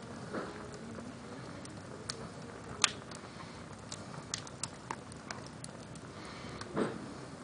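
Logs burning in a fireplace, crackling with scattered sharp pops, the loudest about three seconds in. A brief whoosh comes near the end.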